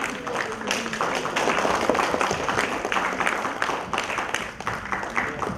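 Applause: many people clapping at once in a steady, dense patter.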